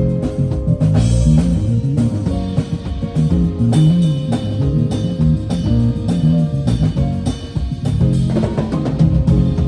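A band playing a song: guitar, bass guitar and drum kit together, with a moving bass line under the guitar and steady drum hits.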